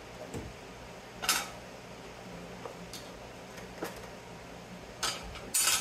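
Metal parts of a dismantled variable frequency drive being handled and set down: a few scattered sharp clanks and clinks of aluminum and steel pieces, loudest about a second in and again near the end.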